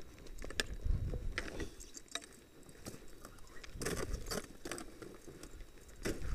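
Close-up ice-climbing gear sounds: irregular knocks, scrapes and clinks as ice axes and crampons strike snow and ice and metal hardware knocks together, with a cluster of strikes around the middle.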